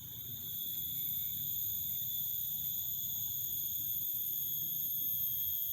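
A steady, high-pitched whine with overtones, holding one pitch without a break: the strange, eerie sound the title speaks of. Under it is a low rumble.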